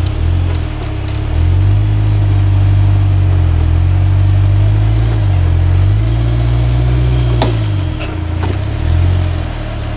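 Rock-crawler trial vehicle's engine revving up and down in long swells. There is a sharp knock about three quarters of the way through.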